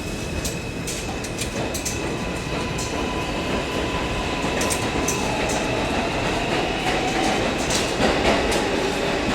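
New York City subway train running, heard from inside the car: a steady rumble with a faint steady whine and scattered clicks of the wheels over the rail joints, a little louder in the second half.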